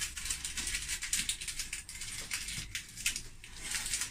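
Dry onion skins crackling and rustling in the hands as they are pressed around an egg, a quick run of irregular small crackles.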